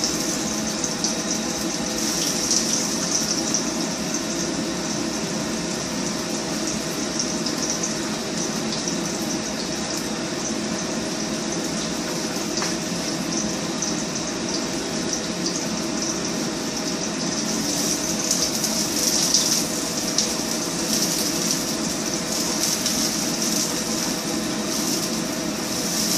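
Garlic frying in hot coconut oil in a pan: a steady sizzle, with a faint steady hum underneath.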